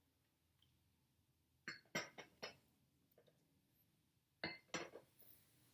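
Small hard objects clinking and clicking against each other in two short clusters, about two seconds in and again about four and a half seconds in.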